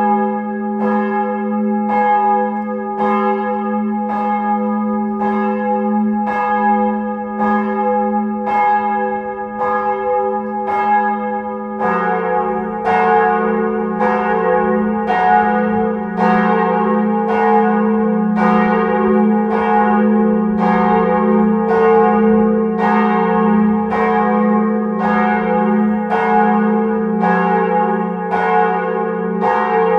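Church bells ringing, with strokes about once a second whose tones ring on and overlap. About twelve seconds in, a lower-pitched bell joins and the peal grows fuller.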